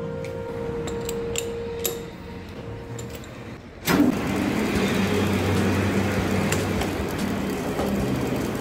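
Metal lathe switched on about four seconds in, its spindle and gearing then running with a steady loud mechanical noise. Before that, a lower hum with a few light clicks.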